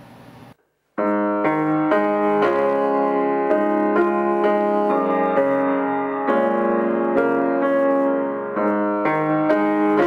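Piano music starting about a second in after a brief silence, chords struck in a steady rhythm about twice a second.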